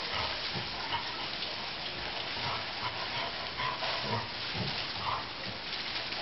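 An Airedale terrier sniffing and snuffling with its nose in the leaves of a potted grass plant: short, irregular sounds over a steady hiss.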